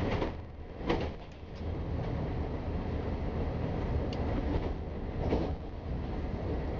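Ferrovie Nord commuter train running at speed, heard from on board: a steady low rumble of wheels on rail. The noise dips briefly at the start, then comes a short rush of noise about a second in and another a little after five seconds.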